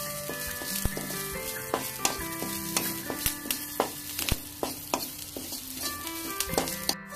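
Sliced shallots, garlic and curry leaves sizzling in oil in a metal kadai, stirred with a spatula that scrapes and clicks against the pan about once or twice a second. Soft background music plays underneath.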